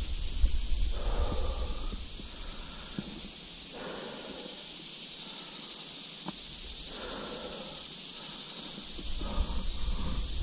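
Mountain bike rolling along a dirt singletrack, squealing briefly several times, most likely from its brakes, over a steady high hiss.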